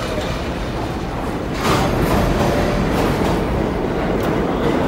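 Budd R32 subway train rumbling along the platform as it slows to a stop. About two seconds in, a sudden louder rush of noise sets in and holds.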